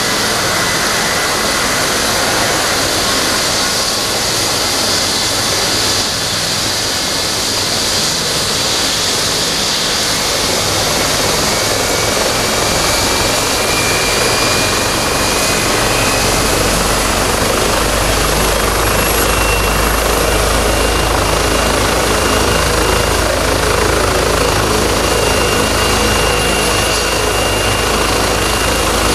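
Eurocopter EC135 rescue helicopter on the ground with its twin turbine engines and four-blade main rotor running. The turbine whine steps up in pitch, and the low rotor beat grows heavier about halfway through as the rotor comes up to speed for take-off.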